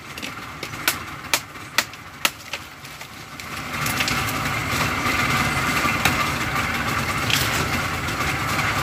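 An engine running steadily, growing louder about three and a half seconds in. Sharp clicks come about twice a second over the first couple of seconds.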